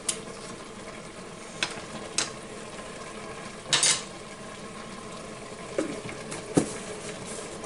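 Chicken and vegetable stir-fry sizzling steadily in a pan, with a spoon knocking and scraping against the pan a few times.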